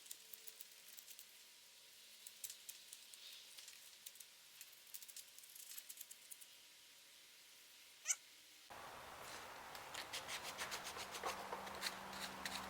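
Faint, irregular scratching strokes of 220 grit sandpaper rubbed by hand along the edges of a Kydex sheath. There is one short sharp squeak about eight seconds in. After that a low steady hum comes in under more rubbing strokes.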